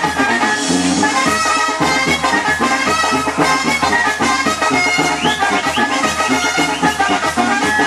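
Loud Mexican dance music with brass and clarinets over a steady beat, played through a party DJ sound system.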